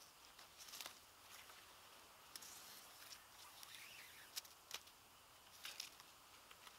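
Faint rustling of a cord being wrapped and pulled tight around wooden poles in a lashing, with several short, sharp scrapes spread through.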